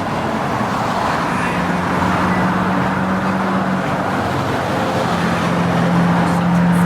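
Road traffic noise: a steady rush of passing cars, with a low engine hum that comes and goes.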